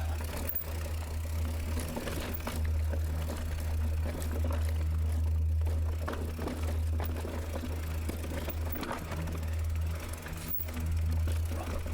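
Mountain bike riding on a trail: steady wind rumble on the microphone, with clicks and rattles from the bike over rough ground and low music underneath.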